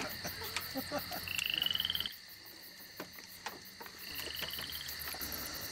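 Frogs calling, with two short, rapid, high-pitched trills, one about a second in and another near the end, over faint scattered clicks.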